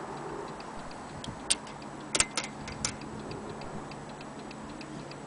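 Antique French slate-and-marble mantel clock's movement ticking fast and evenly, with a few louder, sharper clicks between about one and a half and three seconds in.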